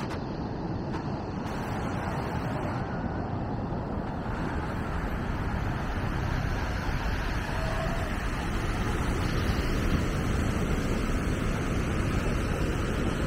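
Wind rumbling on the microphone over waves breaking on a sandy beach, a steady noise that grows a little louder and brighter after about four seconds.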